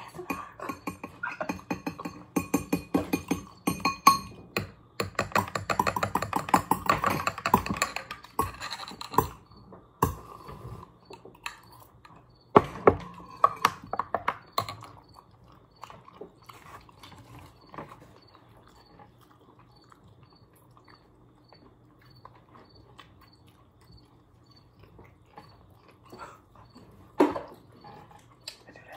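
Soft background music, busiest in the first nine seconds, under close-up eating sounds and a few sharp clinks of a metal spoon against a glass of milkshake.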